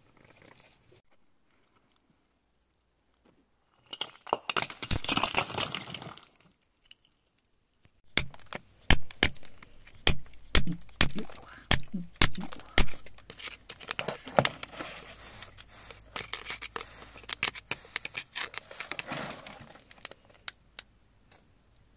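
Metal chisel scraping through wet gravelly clay and knocking against rock while digging out embedded stones. A burst of scraping comes about four seconds in, then from about eight seconds a long run of sharp knocks mixed with scraping.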